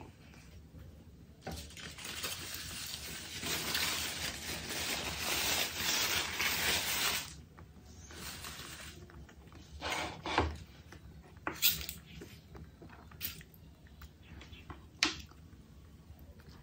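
A rustling, crinkling noise lasting about six seconds, then several sharp clinks of cutlery against dishes at the table.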